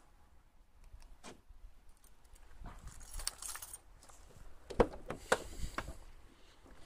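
Car keys with a flip-key fob jangling in the hand. Near the end come two sharp clicks as the Alfa Romeo 156's driver door is unlatched and opened.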